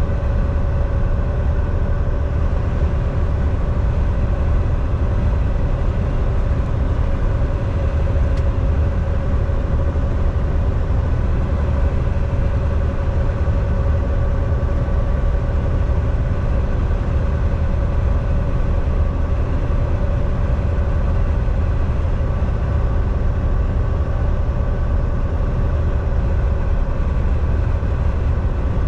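Volvo semi truck driving along: a steady low diesel engine and road rumble with a constant mid-pitched hum over it.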